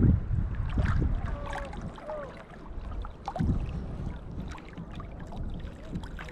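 Shallow seawater sloshing and splashing, with wind rumbling on the microphone and a louder low splash about three and a half seconds in.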